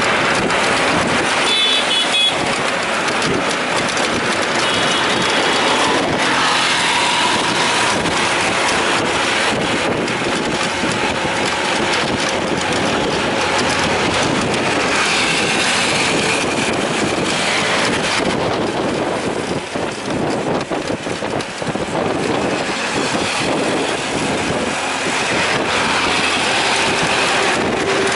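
Steady, loud ride noise from an engine-driven rickshaw travelling along a busy road: its engine running and the rumble of the ride, mixed with the noise of passing traffic.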